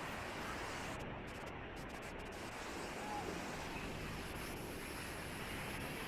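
Surf breaking and washing up over the sand at the water's edge, a steady wash of noise, with faint voices of people on the beach.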